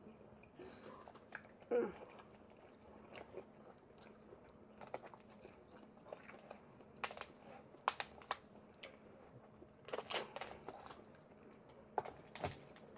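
Eating seafood close to the microphone: quiet chewing and crunching with scattered sharp clicks and cracks, in clusters about seven seconds in and again around ten to twelve seconds in.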